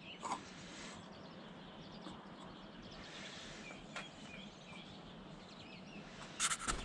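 Quiet backyard ambience with small birds chirping now and then in the background. A short loud noise comes near the end.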